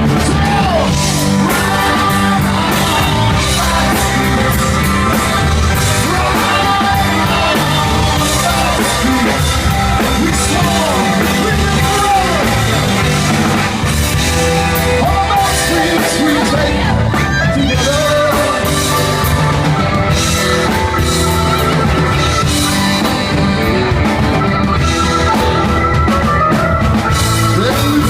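Live rock band playing at a steady, loud level, with a drum kit.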